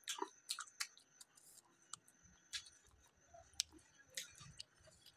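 Close-miked eating sounds of a person chewing soft pav bread with bhaji: wet mouth clicks and lip smacks, several a second, busiest in the first second.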